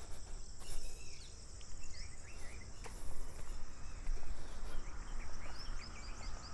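Outdoor morning ambience: insects droning steadily at a high pitch, with many short bird chirps scattered through it, a quick run of them near the end, over a low rumble.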